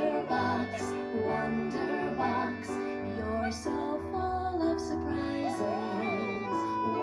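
A children's song with a sung melody over a bass line and a steady beat.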